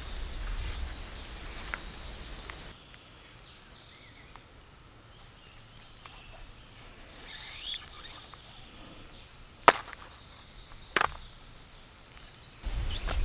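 Quiet handling of cord lashings being pulled tight and knotted around a wooden pole frame. Two sharp clicks come near the end, the first about ten seconds in and the second a second later, and a bird chirps faintly.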